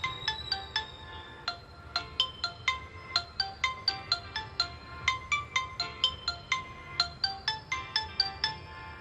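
Background music: a bright, ringtone-like melody of quick struck notes, about five a second, over a soft low bed.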